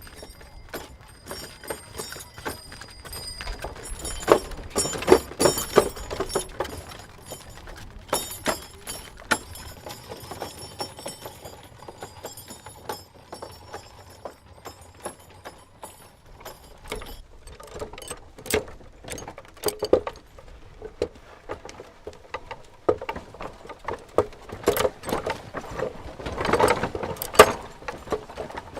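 Bullock cart moving: the bullocks' bells jingle along with irregular clopping and wooden knocks and rattles of the cart. The bell jingling dies away about two-thirds of the way through, and the knocking grows louder near the end.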